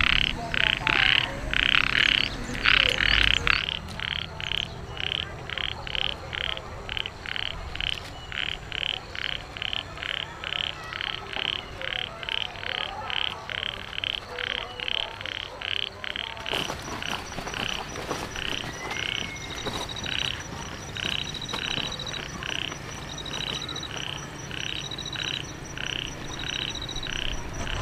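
Frogs calling in a steady rhythm, about two short calls a second and louder in the first few seconds. From about two-thirds of the way in, a second, higher-pitched short note joins about once a second.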